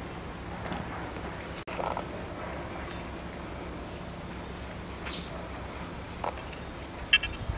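Steady high-pitched chorus of insects buzzing from the surrounding tropical vegetation, with one short sharp sound near the end.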